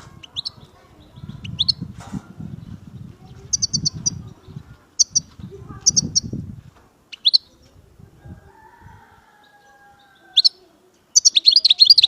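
European goldfinch calling: short high chirps and brief trills scattered over the first eight seconds, then a fast, dense twittering song burst near the end. A low rumbling noise sits underneath the first half.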